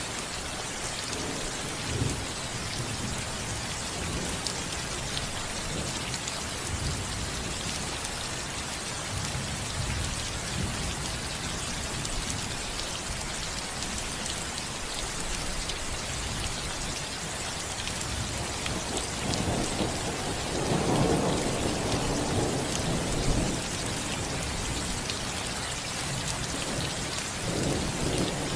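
Steady rain pattering on a roof, with a long roll of thunder rumbling about two-thirds of the way through and a shorter rumble near the end.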